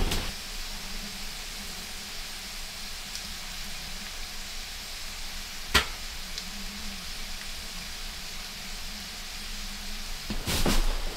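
Hot pork fat sizzling in a low steady hiss, with a single sharp crackle about halfway through and a louder burst of crackling near the end.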